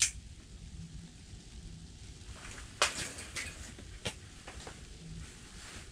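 A few sharp clicks and rustles about three seconds in, with another click a second later, over a steady low rumble and hiss.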